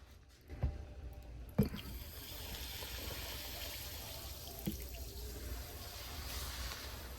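Whisky poured from a hip flask into a glass: a steady stream of liquid lasting about six seconds, after two short knocks near the start.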